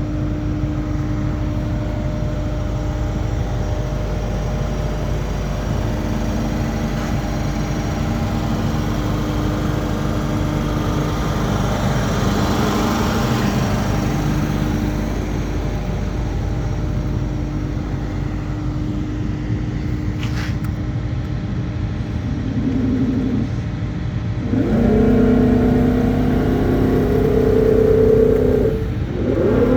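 The Comacchio MC 800 drilling rig's diesel engine runs with a steady drone. In the last few seconds it grows louder, and a higher, stepping whine comes in, as the engine is revved or the hydraulics are worked.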